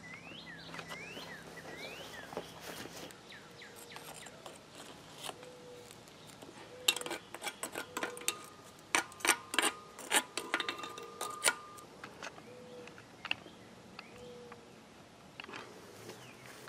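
A quick run of sharp metallic clinks and scrapes, some with a faint ring, from a tool in a gloved hand working around the sand mold and its pouring basin. Near the start, birds chirp in short rising notes.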